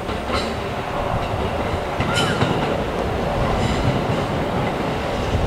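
Electric commuter train rolling slowly into the station with a steady low rumble, its wheels clacking a few times over the rail joints and points.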